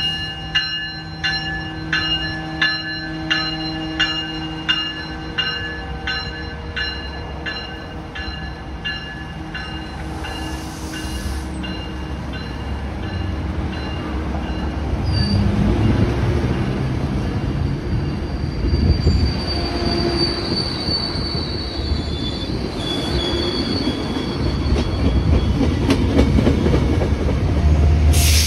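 A warning bell dings about one and a half times a second and fades away over the first several seconds. Then a Metrolink commuter train of bilevel coaches rolls past, its rumble building to its loudest near the end, with thin high wheel squeal partway through.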